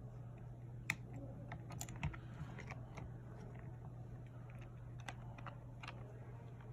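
Scattered light clicks and taps of small repair tools working inside an opened iPhone 12 Pro, over a steady low hum.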